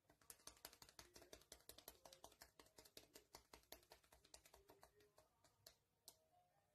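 A fast run of faint, sharp clicks like typing on a keyboard, many a second, stopping a little over five and a half seconds in, with one last click just after.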